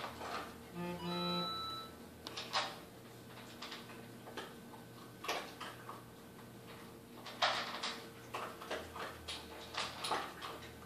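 Scattered soft clicks and smacks as a baby is spoon-fed from a small plastic spoon, over a faint steady hum. A short, flat buzzing tone sounds about a second in.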